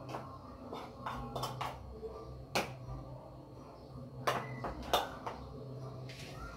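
Cooked rice being pressed down by hand into a stainless steel bowl around a metal mould, with several sharp taps and clicks of metal on metal, the loudest about two and a half and five seconds in, over a low steady hum.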